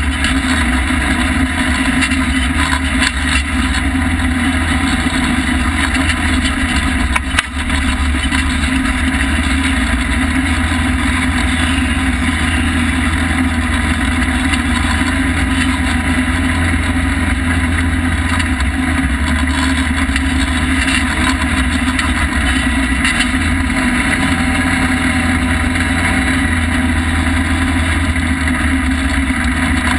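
Polaris RZR side-by-side's engine running steadily as it drives along, with wind and drivetrain noise, heard from on board. There is a single brief knock about seven seconds in.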